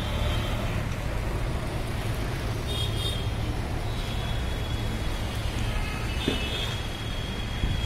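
Street traffic: cars and motorbikes passing with a steady low rumble, and now and then faint high-pitched tones over it.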